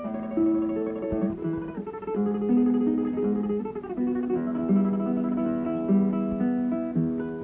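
Soundtrack music: a solo acoustic guitar playing a Spanish-style melody of plucked notes and strums.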